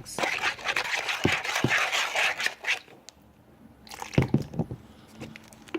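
Borax and water being stirred in a bowl: liquid swishing for about three seconds, with a few sharp clicks of the utensil against the bowl.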